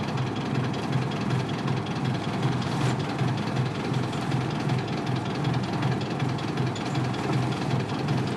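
Isuzu Cubic KC-LV380L bus's 8PE1 V8 diesel engine running steadily with an even, pulsing low beat.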